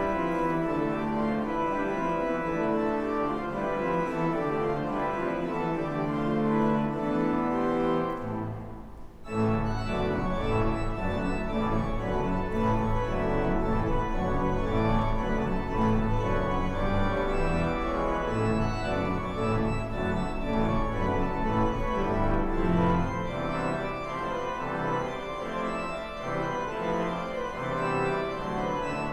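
Church organ playing sustained chords, with a brief break between phrases about nine seconds in.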